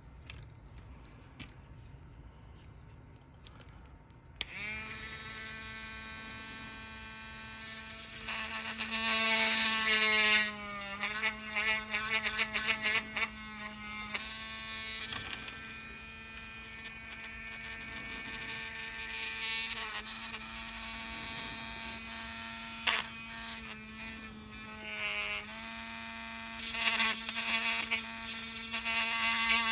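Small Dremel rotary tool switched on about four seconds in and running with a steady high whine. Its pitch dips briefly a few times, with rasping stretches, as a 1 mm drill bit bores into the hard plastic of a vintage action figure.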